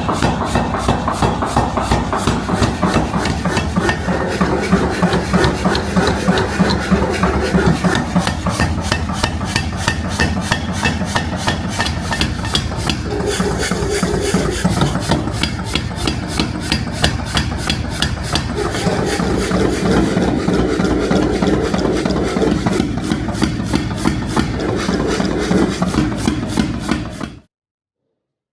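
Metal being filed: rapid, evenly repeated rasping strokes, several a second, that stop abruptly near the end.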